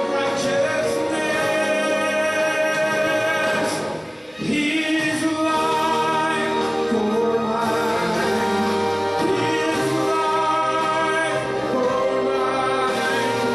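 Gospel worship song: voices singing with instrumental accompaniment, with a brief lull about four seconds in.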